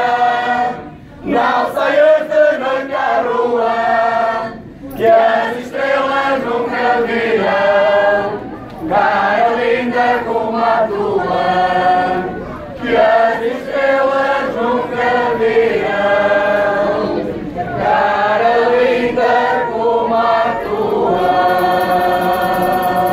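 Portuguese rusga folk group singing in chorus with accordion accompaniment, in sung phrases of about four seconds with short breaks between them. The last phrase ends on a long held chord.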